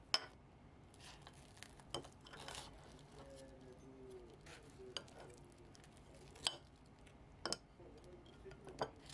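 A metal fork and chopsticks clinking against a ceramic plate while cutting into a deep-fried arancini, about six sharp, spread-out clinks.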